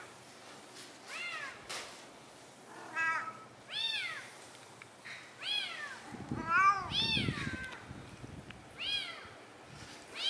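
A cat meowing over and over, about eight short meows, each rising and then falling in pitch. A few come in quick succession. A low rumbling noise runs under the meows from about six to eight seconds in.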